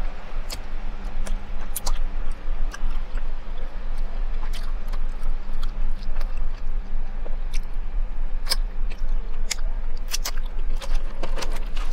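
A person chewing a mouthful of food close to a clip-on microphone: irregular wet clicks and smacks from the mouth.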